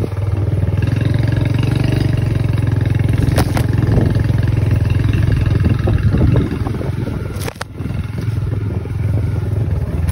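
Small motorbike engine running steadily while riding along a bumpy dirt path, with two sharp knocks from the bike jolting over the ground, the second followed by a brief drop in engine level.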